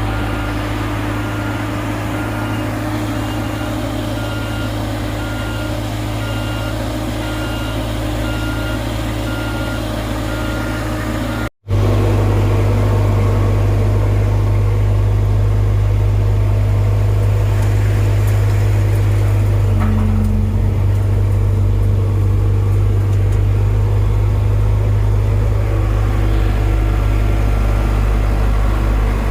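Heavy diesel road-paving machinery running steadily, with a reversing alarm beeping at an even pace for about the first ten seconds. After a cut, a louder, deeper diesel engine hum, which shifts slightly in pitch about two-thirds of the way through.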